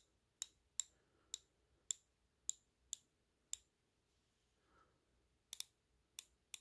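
Milwaukee hand ratchet clicking: single faint, sharp clicks about two a second, with a pause of about two seconds partway through.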